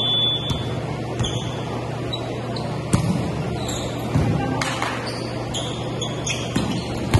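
Volleyball rally on an indoor court: the ball is struck with sharp thuds a few times, and sneakers squeak briefly on the court floor, over a steady low hum.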